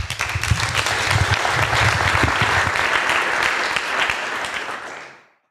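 Audience applauding, a dense patter of hand claps that fades out near the end.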